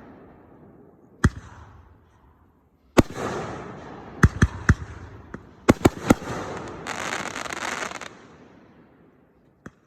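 Fireworks going off: single sharp bangs, each with a fading echo, then two quick clusters of cracks and a crackling hiss lasting about a second.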